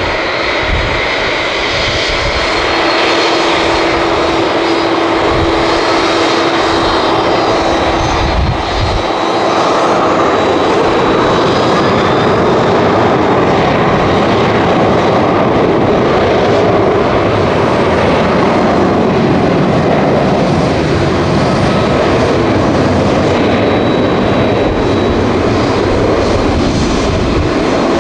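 Boeing 767-300ER's twin jet engines at takeoff power: a loud, steady roar that grows louder about three seconds in and again around ten seconds in, with a steady hum under it for several seconds early on.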